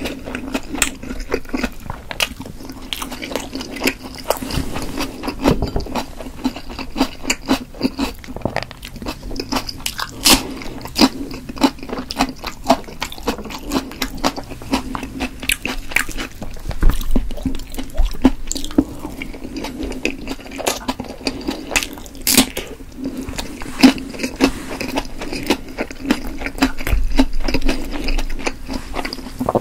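Close-miked chewing of chewy steamed potato dumplings: a steady run of wet mouth clicks and smacks, with a few sharper clicks standing out.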